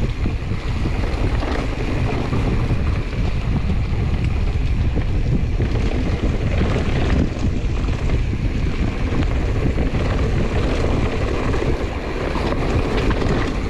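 Wind rushing over the microphone while a 2021 Giant Trance X 29 mountain bike rolls fast down a dirt trail, its tyres and trail noise mixed into a steady rumble.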